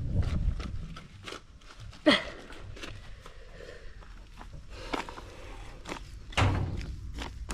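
Footsteps and scattered knocks and thuds, with a sharp knock about two seconds in and a heavy thud near the end.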